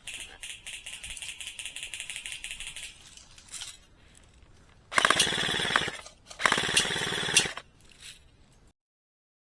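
Airsoft electric rifles firing full-auto bursts: a long rapid rattling burst of about three seconds, then two louder bursts of about a second each around five and six and a half seconds in. The sound cuts out abruptly near the end.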